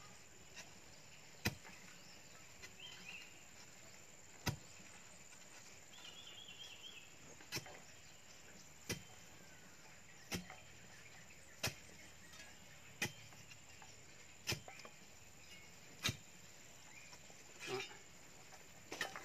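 A long-handled digging spade being jabbed down into packed soil to dig a fence-post hole: sharp, short strikes about every second and a half, a dozen in all.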